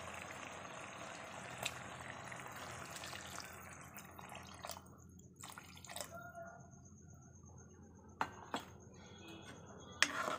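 Water poured into a hot kadai of frying mustard greens and spices, hissing and sizzling, with the hiss dying away after about four or five seconds. A few light clicks follow in the quieter second half.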